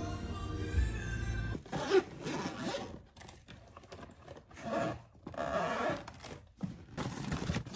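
Background music stops about a second and a half in, followed by the zipper of a hard-shell suitcase being pulled round its edge in several separate long strokes.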